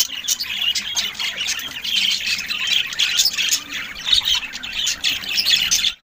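A flock of caged budgerigars chattering: many quick overlapping chirps and squawks, cutting off suddenly near the end.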